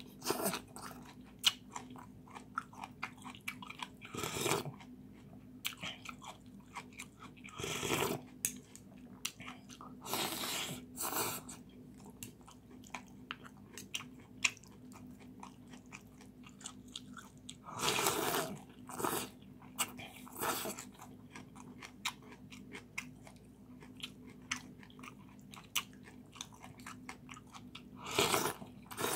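A person eating rice-noodle soup: loud slurps of noodles and broth come every few seconds, about eight in all, with chewing and small mouth clicks in between.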